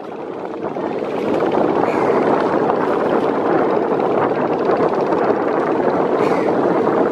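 Steady engine and water noise of a river passenger launch underway, fading in over the first second and a half, then holding level.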